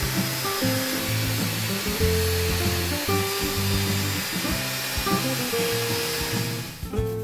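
Lotus table saw running, a steady whining hiss as a thin strip of wood is ripped, that stops near the end. Background music plays underneath.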